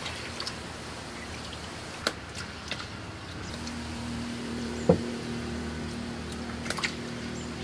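Hands washing rice in water in an aluminium basin: faint swishing with a few clicks and one sharp knock a little past halfway, over a steady low hum that comes in about halfway through.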